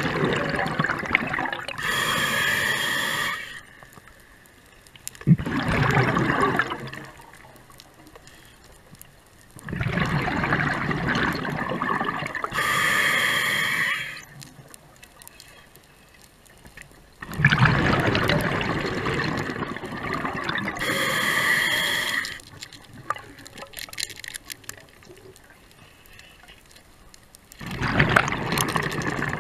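Scuba diver breathing through a regulator: longer rushing exhalations of bubbles alternating with shorter hissing inhalations that carry a faint whistling tone, about three breaths with quiet gaps between.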